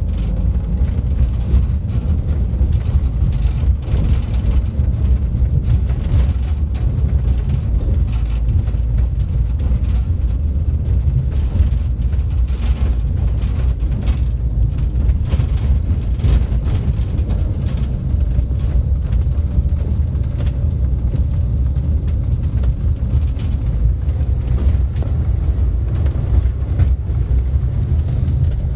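Vehicle driving, heard from on board: a steady low engine and road rumble with scattered light knocks and rattles.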